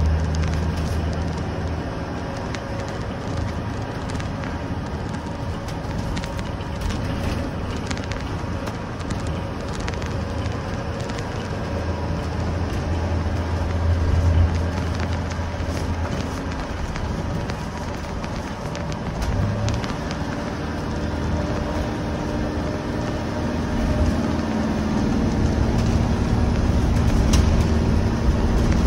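Cab of a 2020 Thomas C2 school bus under way: its Cummins ISB 6.7-litre diesel engine runs steadily under road and tyre noise, getting louder near the end. Scattered crackles come from the microphone.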